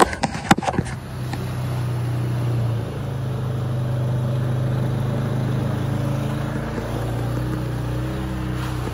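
Side-by-side UTV engine running steadily as the machine drives through mud and water, its pitch shifting slightly a few times. A few sharp knocks from handling sound in the first second.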